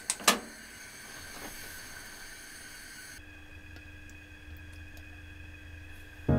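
A utensil clinks once against cookware just after the start, then a quiet steady kitchen hum. Right at the end, food goes into a hot oiled pan and starts to sizzle.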